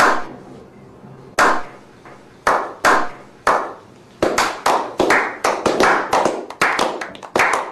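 A slow clap by a small group of men: single claps about a second apart at first, coming faster and faster until they run into steady applause. Each clap rings out with a long echo.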